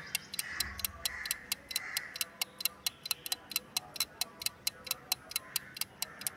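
Clock-tick sound effect ticking evenly at about four ticks a second, a quiz answer countdown, over faint background music.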